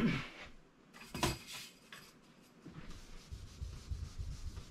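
Faint scratching and rubbing of handwriting as a formula is written out, with one short, sharper scrape about a second in.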